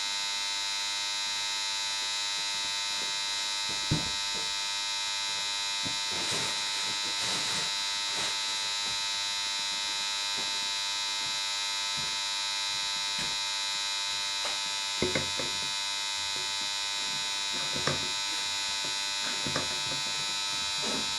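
A steady electrical buzz with a few light knocks and clicks as parts of a small motorcycle engine are handled on the bench. There is a sharper knock about four seconds in and several smaller ones near the end, as the flywheel rotor is fitted.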